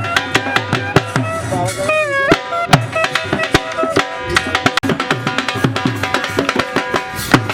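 Background music with a fast, steady drum beat under a sustained melody that bends in pitch about two seconds in.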